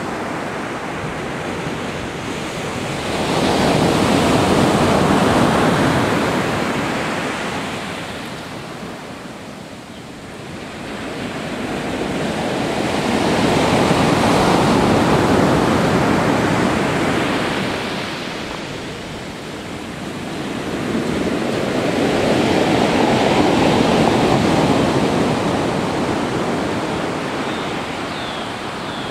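Pacific Ocean surf: waves breaking and washing on the shore in three slow swells, each building and fading over several seconds, about ten seconds apart.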